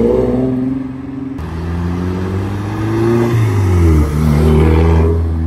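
A Nissan 370Z's V6 exhaust accelerating away, its pitch climbing; then a Volkswagen Golf's engine driving by, its pitch rising and then dropping about three and a half seconds in before settling into a steady low drone.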